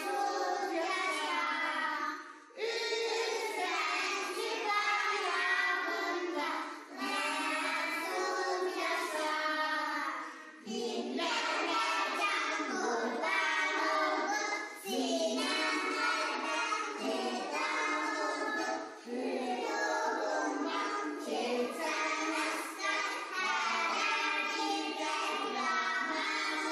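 A group of young children singing a song together, in phrases broken by short pauses every few seconds.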